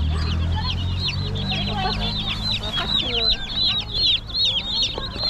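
Many live chickens calling in a dense chorus of short, high peeps, several a second, with a low steady hum underneath during the first second or two.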